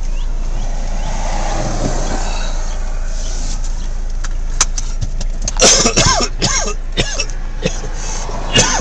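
Volkswagen diesel engine idling, heard as a steady low drone inside the car's cabin. A person coughs a few times about two-thirds in and again near the end.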